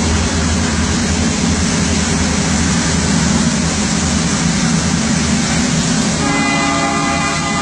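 Train passing close by with a loud, steady rolling rumble. About six seconds in, its horn starts sounding a steady chord.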